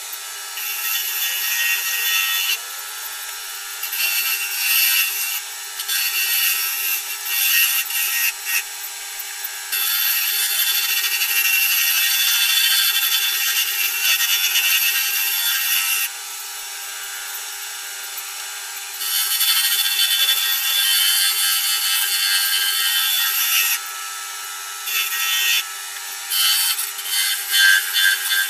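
Wood lathe running, with a hand-held tool pressed against a spinning celery wood pen blank on a mandrel. The bright cutting and scraping noise rises and drops off in stretches of several seconds as the tool meets and leaves the wood, over a faint steady hum from the lathe.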